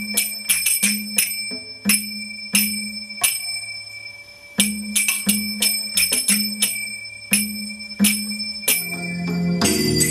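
Finger cymbals (zills) played in the chifti-telli rhythm: bright metallic strikes that ring on, in repeating groups, over background music. There is a short gap in the strikes about four seconds in, and near the end the sound turns denser and busier, with more music under the cymbals.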